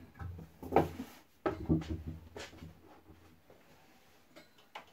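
A few sharp knocks and clunks as the neon sign and its metal frame are handled on the workbench, then a quieter stretch with a few faint clicks near the end.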